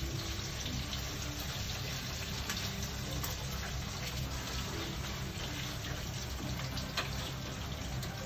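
Bacon and garlic sizzling steadily in a frying pan, with a couple of light clicks of chopsticks against the pan.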